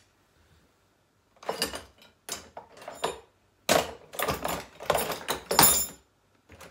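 Hand tools being rummaged through and lifted out of a tool box: a run of clattering knocks and rattles with some metallic clinks, starting about a second and a half in and stopping shortly before the end.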